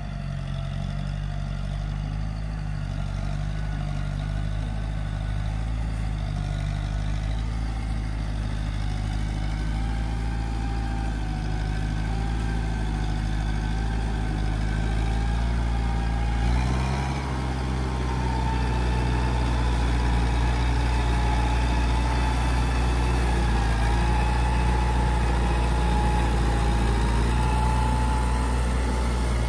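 Diesel farm tractor running steadily while it pulls a disc harrow through dry soil, getting louder as it comes closer. A little over halfway through the engine note changes and grows stronger.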